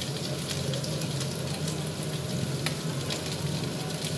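Chopped onion and diced turkey frying in hot oil in a non-stick pan: a steady sizzle, with a few sharp clicks as onion is tipped in from a plastic bowl.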